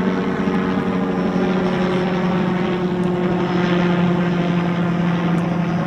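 Steady engine drone holding an even pitch, loud and unbroken.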